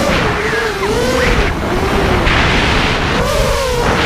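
FPV miniquad's brushless motors and propellers whining, the pitch swooping up and down with the throttle, recorded on the quad's onboard camera. Bursts of loud rushing air noise come and go, the strongest about two seconds in.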